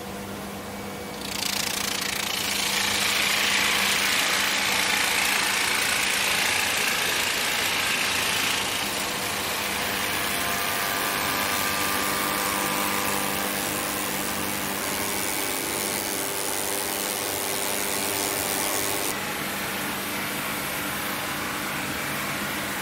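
Wood-processing machinery running and cutting timber: a loud, steady cutting noise that starts abruptly about a second in and changes character twice, at about eight and about nineteen seconds.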